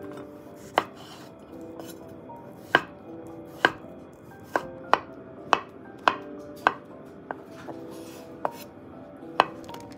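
Kitchen knife slicing tomato and avocado on a wooden cutting board: about a dozen sharp knocks of the blade hitting the board, irregularly spaced.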